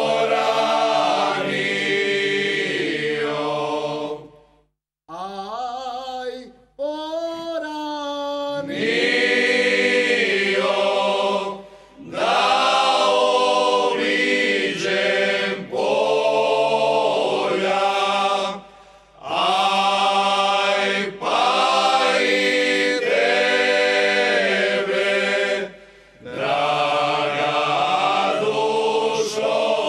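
Men's folk singing group singing a Slavonian folk song unaccompanied, in phrases broken by short pauses. About five seconds in, a single voice sings a line alone before the whole group comes back in.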